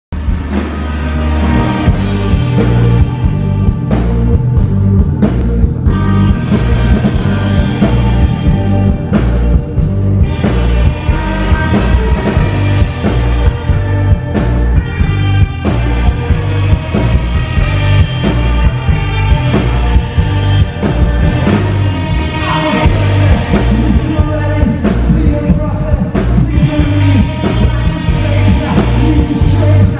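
Live rock band playing loudly: electric guitars, bass guitar and drums with regular hits, and a singer's voice over them.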